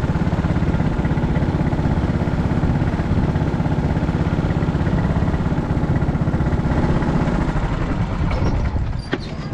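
Go-kart's small petrol engine idling close to the microphone, a steady rapid putter that eases off slightly near the end.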